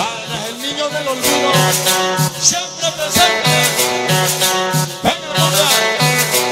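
Cumbia dance music played loud through a sonidero sound system, with a repeating bass note and a steady percussion rhythm.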